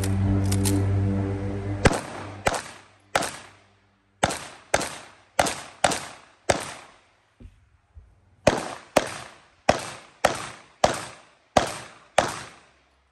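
Pistol shots fired in quick strings, about two a second: eight shots, a pause of about two seconds, then eight more.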